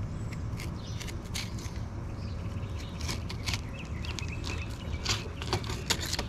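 A fillet knife cutting along the backbone of a redfish (red drum), giving a run of crunching and scraping clicks as the blade passes over bone and the tough scaled skin. The clicks come thickest and sharpest in the second half.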